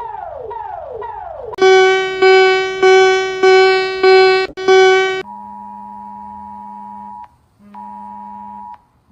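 Synthesized emergency alert alarm tones in sequence: repeating falling sweeps, then six loud pulsed beeps about half a second apart, each fading slightly, then a steady electronic attention tone that sounds twice with a short break between.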